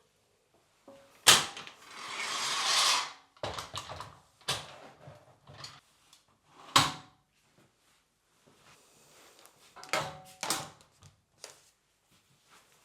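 Household objects being handled: a sharp knock about a second in, then a scraping sound that grows louder for about a second and a half before stopping. Scattered clicks and taps follow, with another sharp knock midway and a small cluster of knocks near the end.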